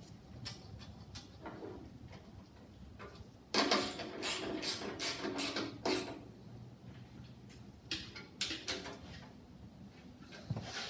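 Socket ratchet clicking as bolts are run down on a small engine: a few single clicks, then a quick run of fast ratcheting about three and a half seconds in, and another run near eight seconds.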